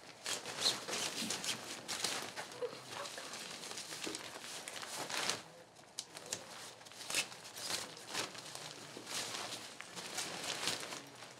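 Tent fabric rustling and crinkling in irregular bursts as it is handled and a pole is fed through the sleeves along its top, with a brief lull about halfway.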